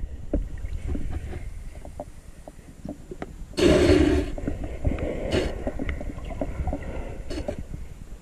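Muffled underwater sound of a camera held in shallow seawater: a low rumble of moving water with scattered clicks and knocks. About three and a half seconds in, a louder rush of water noise lasts about half a second.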